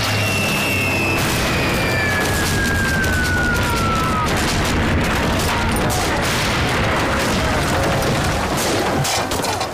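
Battle sound effects: explosions and bursts of gunfire over a dense, continuous din. A long falling whistle runs through the first few seconds, and sharp cracks come near the end.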